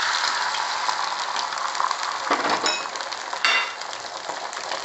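Beaten egg sizzling as it is poured into a hot, oiled nonstick frying pan, the sizzle easing off a little as the egg sets. A couple of short clinks come about two and a half and three and a half seconds in.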